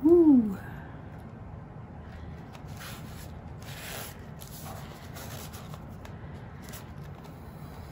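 Faint rustling and rubbing of materials being handled, a few short scrapes from about three seconds in, over a steady low hum.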